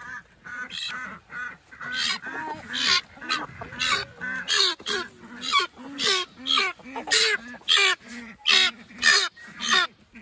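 Ducks quacking loudly and over and over, about two calls a second.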